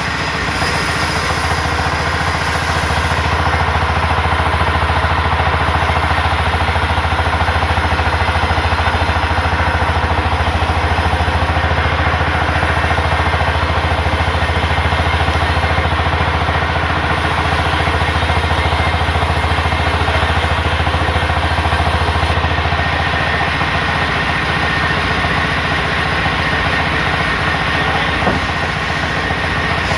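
Sawmill machinery running with a loud, steady low drone that eases slightly about two-thirds of the way through.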